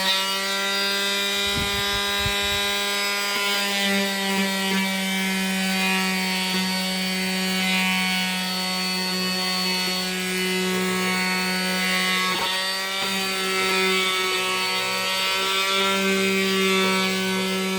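Oscillating multi-tool running steadily on wood, as used for sanding into corners: a continuous buzz whose pitch dips slightly now and then.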